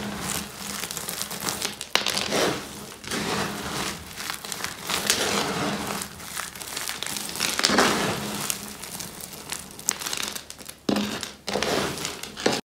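Dry crushed soap pieces crunching and crackling as hands squeeze and rummage through a pile of them, coming in uneven surges. The sound cuts off suddenly near the end.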